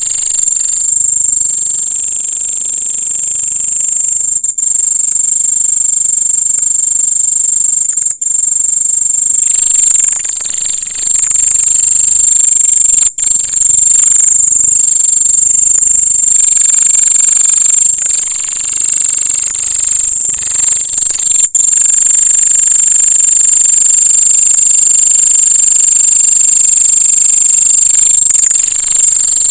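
Cricket singing its calling song at close range: a loud, continuous, high-pitched trill, broken three or four times by split-second pauses.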